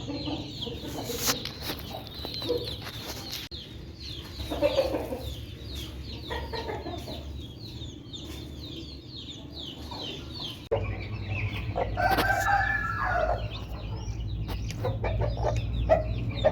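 Chicks peeping rapidly and continuously, with an Aseel hen clucking among them. Near twelve seconds in there is a longer, drawn-out fowl call.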